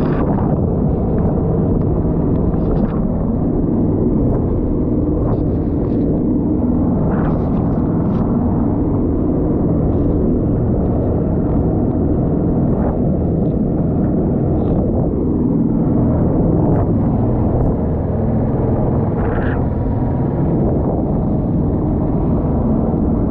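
Small wooden boat's motor running steadily under way, with water splashing against the hull now and then and wind buffeting the microphone.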